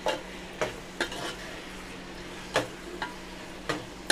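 Steel spoon scraping and knocking against the steel pot, about six sharp knocks at uneven intervals, as mutton pieces are stirred and fried in oil with ginger-garlic paste, over a faint steady sizzle.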